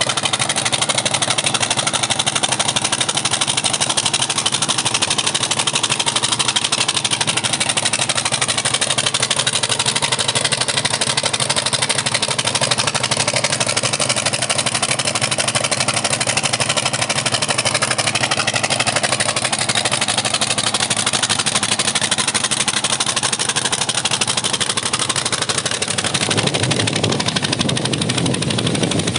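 Engine running steadily without let-up; a deeper rumble joins near the end.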